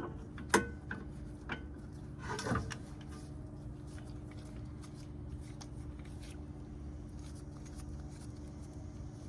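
A few sharp metal clicks and a short scrape as a piston-compression tool is set against the brake caliper, then a steady low background hum.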